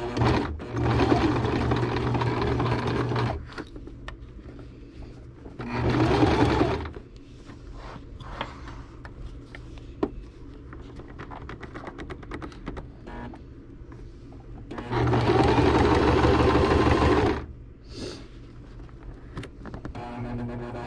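Domestic electric sewing machine stitching binding in short runs: about three seconds of stitching at the start, a brief run about six seconds in, and another run of two to three seconds about fifteen seconds in, with quieter pauses between.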